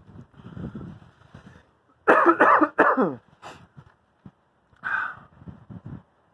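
A man having a coughing fit set off by a tickle in the throat: a few lighter coughs, a loud run of coughs about two seconds in, and another cough near five seconds.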